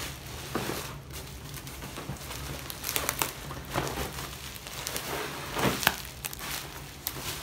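Bubble wrap crinkling and rustling as a wrapped box is worked out of it by hand, in irregular crackles, the loudest a little after halfway.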